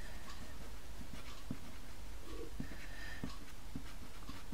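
White soft pastel stick stroked across textured pastel paper: irregular light scratchy strokes as the white is laid on, over a steady low hum.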